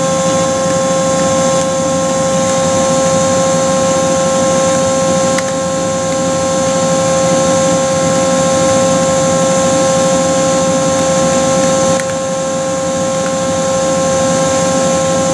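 Steady hum of running machinery with a constant mid-pitched whine over it, and a few faint clicks.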